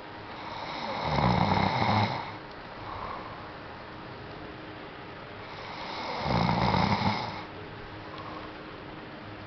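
A man snoring heavily in his sleep: two loud, rough snores about five seconds apart, each lasting about a second, with a softer breath between them.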